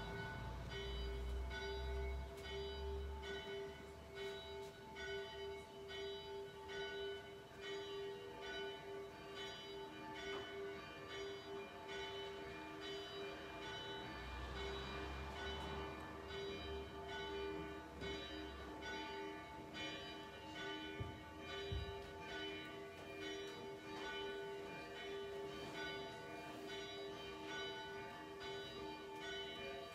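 Church bells ringing, an even run of strokes that keep sounding over one another: the bells rung to call the congregation before a service.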